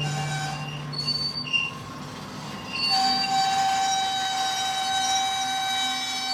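Steel wheels of a slow-rolling double-stack intermodal freight train squealing on the rail. Short high squeals come and go at first, then about three seconds in a loud, sustained squeal with several tones sets in and holds.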